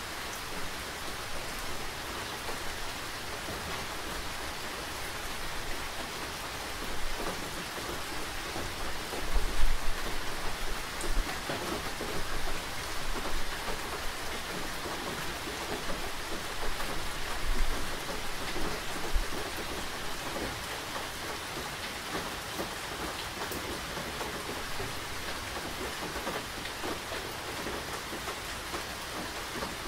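Steady rain falling and pattering on surfaces. Low rumbling surges come about ten seconds in and again near eighteen seconds.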